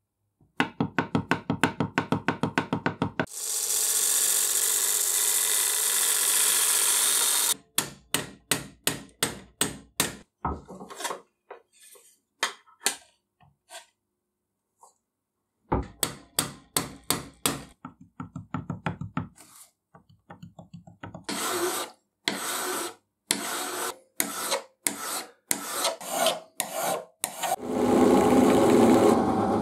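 Hand filing on thin steel sheet-metal parts: runs of rasping strokes, fast at first and later about two to five a second, with a steady rasp of about four seconds starting about three seconds in. Near the end a drill press runs a small wire cup brush against a riveted joint, a steady scraping.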